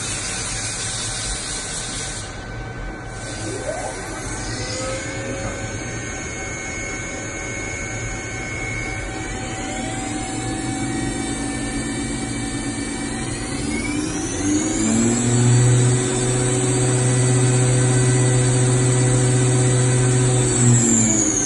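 Lagun L-1000 vertical machining center's spindle running up in speed: its whine rises in several steps to a high steady pitch with a low hum under it, then starts to wind down near the end. A hiss in the first few seconds.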